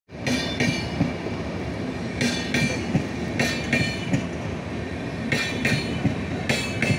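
Passenger train of LHB coaches rolling past close by, a steady rumble broken by wheels clacking over a rail joint in quick pairs, a pair every second or two.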